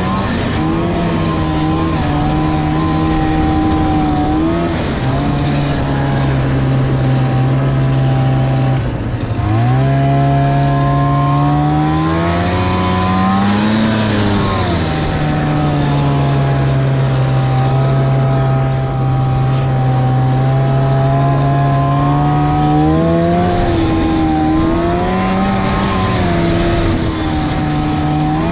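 Snowmobile engine running under way at a fairly steady speed. About nine seconds in it drops off, then climbs in pitch to a peak a few seconds later before settling back. It rises and falls again near the end.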